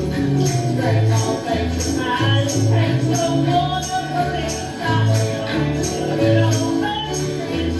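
Country-style Christmas song played by a band, with a bouncing bass that moves between notes and a steady beat of bright high percussion.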